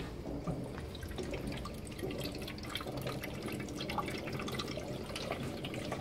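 Water running from a bottled-water cooler's tap into a plastic coffee-machine water tank: a steady trickle with many small drips and splashes.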